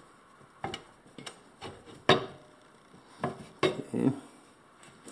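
Sharp metallic clinks and knocks as a pressure washer pump is worked onto the engine's crankshaft and seated against its mounting flange. There are about seven separate clinks, the loudest about two seconds in.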